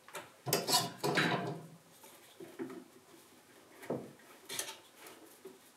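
Small one-handed bar clamps being handled and set on a glued wooden frame corner: a clatter of plastic and wood knocks about half a second in, then a few scattered sharp clicks as the clamps are put on.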